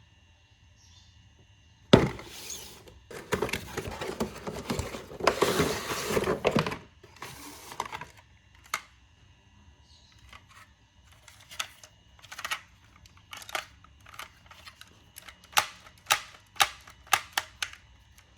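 Toy packaging being handled and opened: a sharp knock, then several seconds of rustling and crinkling, then a string of separate sharp clicks and taps.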